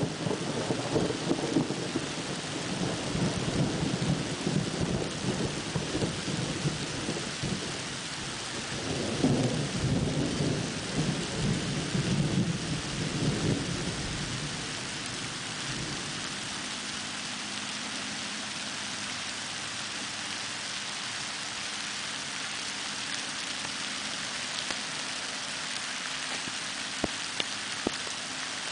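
Steady rain hiss with rolling thunder rumbling through the first half, swelling again before dying away about halfway through, leaving only the even sound of rain.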